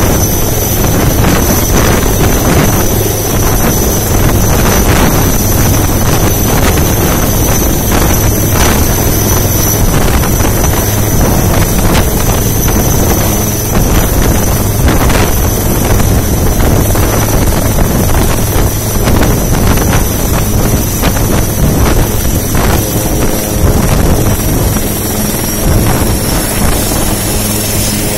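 HAL Dhruv military helicopter landing close by: a steady high turbine whine over a low rotor beat, with gusts of rotor downwash buffeting the microphone.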